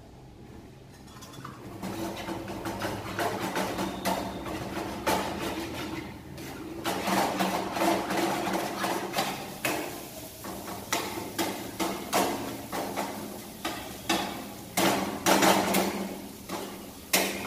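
Steel spatula scraping and knocking against a frying pan while egg scrambled with tomato masala is stirred and broken up, in quick irregular strokes. The knocks get louder and sharper in the last few seconds.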